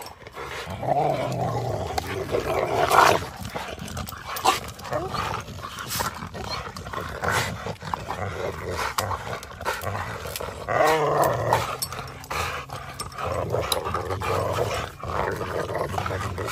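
Several Cane Corsos growling as they tug and bite at a stick together, the growls swelling and fading over several seconds, with scattered sharp clicks and knocks.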